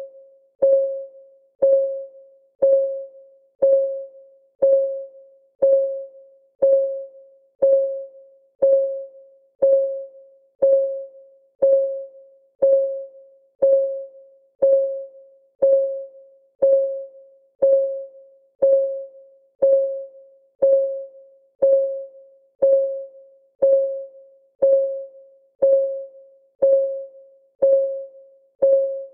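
Timer's clock-ticking sound: a short pitched tick about once a second, each fading quickly, in a perfectly even beat.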